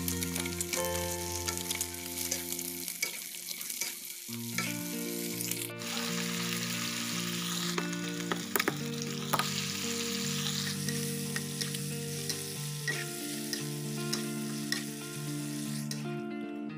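Cucumber slices and egg sizzling in hot oil in a wok, with a metal ladle stirring and clinking against the pan. The sizzling stops shortly before the end, over steady background music.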